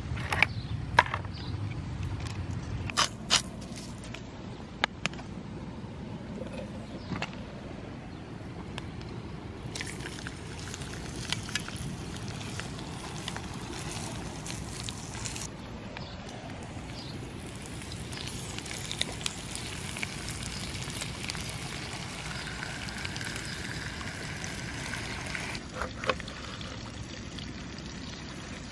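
A few sharp clicks in the first five seconds. From about ten seconds in, a snapper fillet fries in butter and oil in a pan on a portable gas stove, making a steady sizzling hiss, with a couple more clicks near the end.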